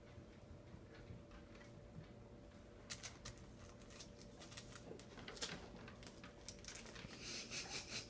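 Faint clicks and crinkles of a plastic-wrapped tampon as a cat bats it about on carpet and then gnaws on it, with a denser rustle near the end.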